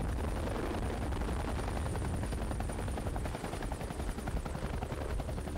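Sécurité Civile EC145 rescue helicopter hovering close by, its rotor beating rapidly over the turbine's rumble. The beat grows a little weaker and less even after about three seconds as the helicopter moves off.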